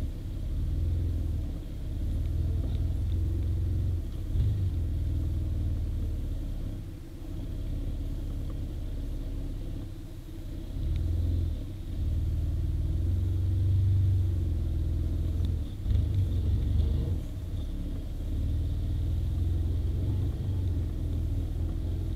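Quad (ATV) engine heard from onboard while riding, a heavy low rumble that swells and eases every few seconds as the throttle opens and closes.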